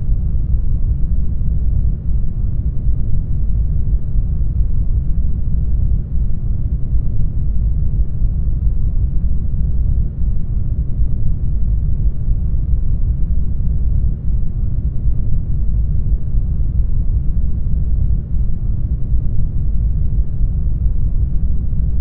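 Isolation-tank ambience: a steady, deep, muffled rumble of low noise with nothing high-pitched in it.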